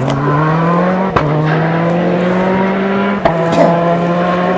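Rally car engine accelerating hard through the gears. Its note climbs steadily and is cut twice, about a second in and just past three seconds, by a sharp crack at an upshift that drops the pitch before it climbs again.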